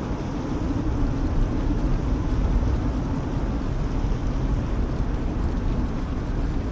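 Strong wind and fire of a fire whirl making a steady low rumble, with wind noise on the microphone.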